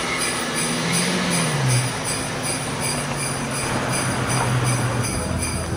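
Christmas music with sleigh bells jingling on a steady beat, about two to three shakes a second, over a low sustained tone.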